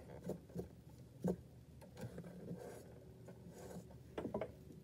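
Felt-tip markers being handled and drawn with: faint rubbing and a few light plastic clicks, with a small cluster of clicks near the end.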